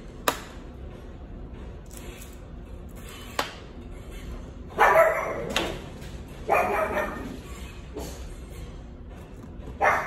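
A dog barking in a few loud, short barks from about five seconds in, the last near the end. Earlier come two sharp taps.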